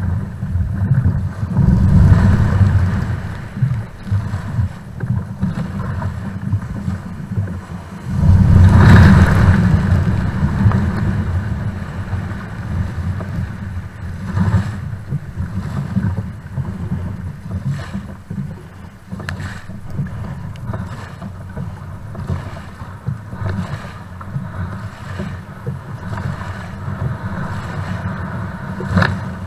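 Wind rumbling on a kayak-mounted camera's microphone over breaking surf and splashing from the paddle and hull as a sit-on-top kayak is paddled out through the waves. The rumble swells about two seconds in and again, loudest, around eight seconds in, with a few sharp splashes later on.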